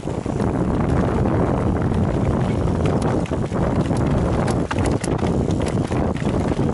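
Mountain bike riding down a rough trail: steady wind rumble on the microphone and tyre noise, with irregular knocks and rattles from the bike over bumps and roots.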